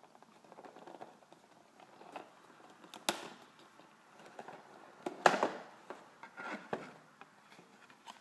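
A cardboard sleeve being slid off a clear plastic Kinder Surprise egg box, giving scraping and rubbing of card on plastic with sharp clicks and knocks. There is one sharp click about three seconds in, and the loudest scrape-and-knock a little past five seconds in.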